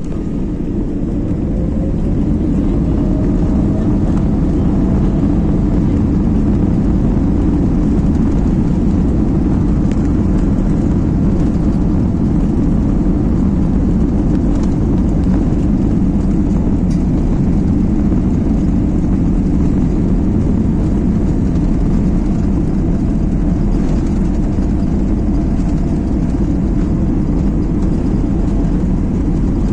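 Inside an airliner cabin during the takeoff roll: the jet engines at takeoff power and the wheels rolling on the runway make a loud, steady low rumble. It builds over the first couple of seconds, with a faint rising whine as the engines spool up.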